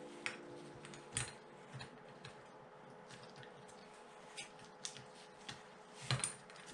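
Small metal carburetor parts being handled and fitted by hand: scattered light clicks and ticks, roughly one a second, with a louder cluster near the end, over a faint steady hum.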